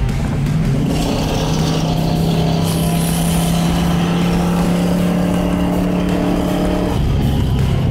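Pontiac GTO Judge's V8 engine heard from inside the cabin, pulling at steady revs on a track, then dropping in pitch about seven seconds in.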